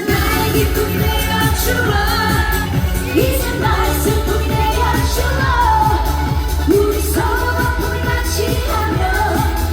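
A woman singing a Korean trot-pop song live through a PA system, over a backing track with a steady bass beat.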